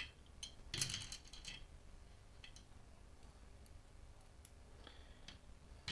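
Faint, scattered clicks and ticks of small screws and T-nuts being handled and fitted into a plastic bracket by hand, with a short clatter about a second in.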